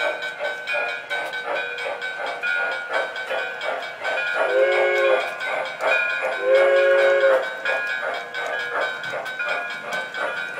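MTH O-gauge model Pennsylvania steam locomotive's sound system blowing its chord whistle twice, a short blast about four and a half seconds in and a longer one about a second later, over the steady rapid clicking and running noise of the train rolling along the track.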